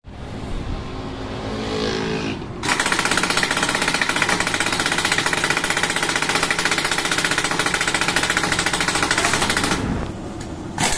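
Air impact wrench hammering rapidly on the rear axle nut of a Yamaha Aerox scooter. It whirs softly at first, then hammers in one long burst starting a couple of seconds in, stops about a second before the end, and kicks in again right at the end.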